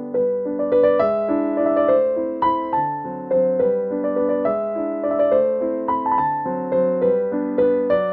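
Background piano music: a light melody with a new note about twice a second, each note fading before the next.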